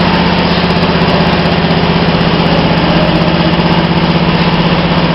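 Automatic plastic-cup filling and sealing machine running: a loud, steady mechanical hum with a fast, even flutter.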